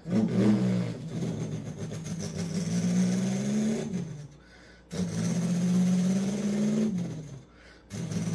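A man imitating a big inline-six UPS delivery truck engine with his mouth. There are three long, slowly rising drones with short breaks between them, like the truck pulling away through its gears.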